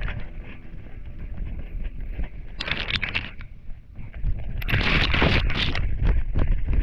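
Close, rumbling handling noise from a GoPro attached to a spaniel as the dog moves through long grass: uneven knocks from its movement, and two spells of swishing, about three and five seconds in, as grass stems and the dog's ear fur brush over the camera.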